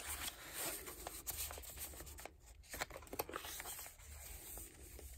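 Faint paper rustling and sliding as the pages and a tucked-in card of a handmade junk journal are handled, with small clicks here and there.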